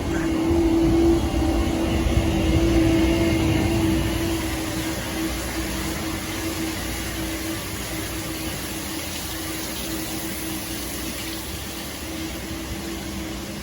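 Milking-shed machinery running with a steady hum and one strong held tone, louder for the first few seconds and then a little softer.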